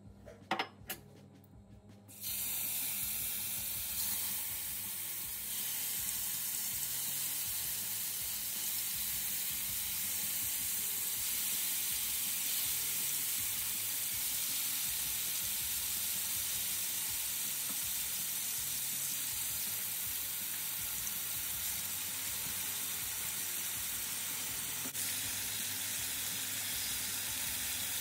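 Yogurt-marinated chicken tikka pieces frying in hot oil in a nonstick pan, a steady sizzle that starts suddenly about two seconds in. A couple of light knocks come just before it.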